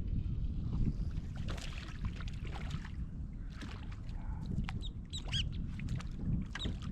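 Low, steady wind rumble on the microphone and water slapping against a boat hull, with a few short high chirps bunched about five to six seconds in.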